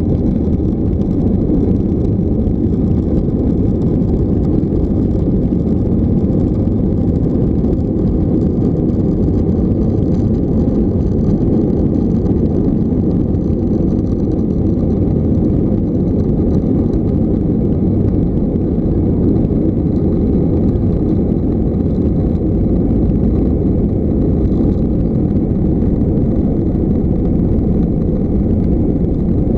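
Steady low rumble heard inside the cabin of an Airbus A320-232 as it taxis, its IAE V2500 turbofan engines at taxi power.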